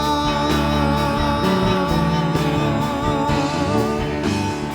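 Live worship band playing, with a singer holding one long, wavering note over guitar accompaniment.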